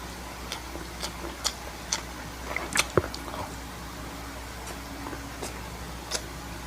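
Close-up eating sounds of someone biting and chewing pizza: scattered wet mouth clicks and smacks, the loudest about three seconds in, over a low steady hum.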